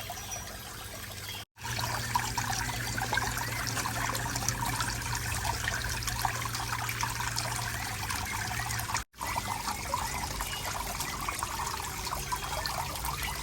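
Water trickling steadily, broken twice by brief dropouts, with a low steady hum under the first part.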